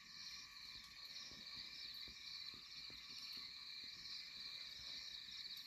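Faint night chorus of crickets and other insects: a steady high-pitched pulsing trill with a fainter, lower chorus beneath it.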